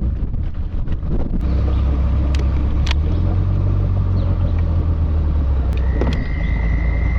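Boat engine running under way, a steady low drone that builds about a second and a half in and rises again around three seconds in. Wind buffets the microphone at the start.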